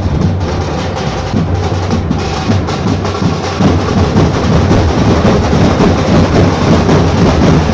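Dhol-tasha drumming: a group of dhol barrel drums beating with fast, dense strokes, growing louder about three and a half seconds in.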